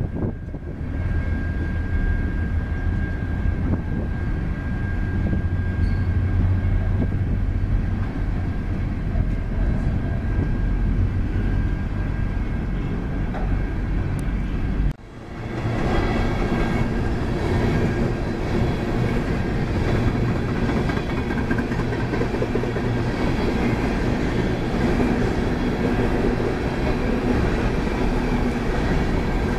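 Empty coal train's hopper cars rolling past on the rails: a steady rumble with wheel clatter. About halfway through the sound breaks off for an instant and comes back closer and louder, the cars' wheels clattering past.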